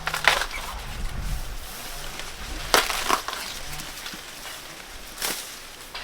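Corn ears being snapped off their stalks by hand: three sharp cracks a couple of seconds apart, with dull thuds and leaf rustle between.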